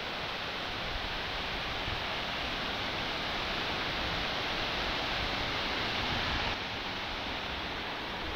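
Ramona Falls, a waterfall, rushing steadily. About two-thirds of the way through, the rush drops a little and loses some of its hiss.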